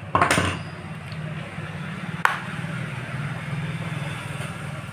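Steady low rumble of a running engine, with a short loud rush of noise just after the start and a single sharp click a little over two seconds in.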